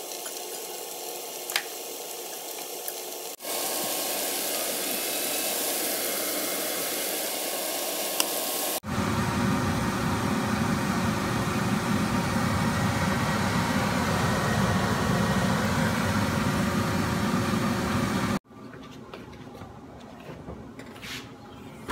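Food sizzling in a frying pan, then a red-wine, beef-broth and tomato sauce boiling hard in the pan, a dense, steady bubbling that is the loudest part. It cuts off sharply near the end, leaving quieter kitchen sounds with a few light clicks.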